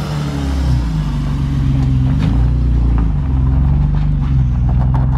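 BMW E36 328i straight-six running through a new single-pipe exhaust, its engine note stepping up and down a little under light throttle.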